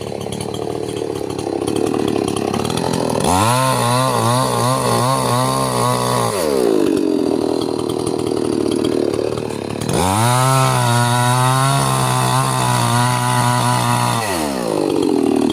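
Two-stroke chainsaw revved to full throttle twice, each time for about three to four seconds, dropping back to a lower running speed in between and again near the end.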